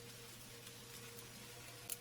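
Quiet steady hum with a light hiss, and one sharp click near the end.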